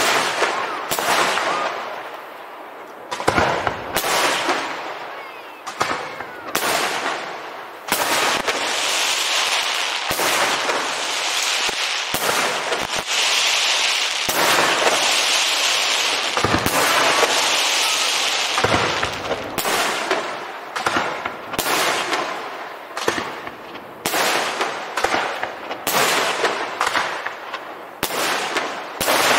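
Fireworks display: aerial shells bursting with sharp bangs, roughly one every second or so. Through the middle stretch a steady hiss fills the gaps between the bangs.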